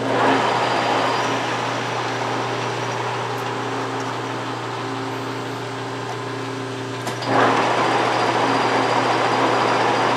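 Metal lathe running: a steady motor hum and gear whir that grows louder just after the start and again, after a click, about seven seconds in.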